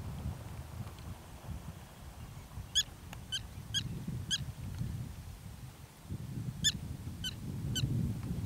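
Black-tailed prairie dog alarm barks: two bouts of short, sharp, high calls, about two a second, over a low rumble.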